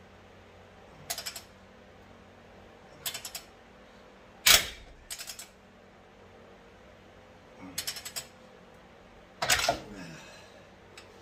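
Ratchet and makeshift steel breaker bar clicking and clanking in six short bursts as they are worked on a rusted torx bolt of a 1998 Jeep Wrangler TJ's stock front bumper, the bolt not breaking loose. The loudest is a sharp metal clank about halfway through, with another loud burst near the end.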